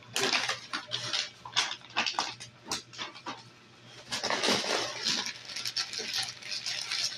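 Plastic parcel packaging crinkling and tearing in short, irregular rustles as it is pulled open, with a denser stretch of rustling about four seconds in.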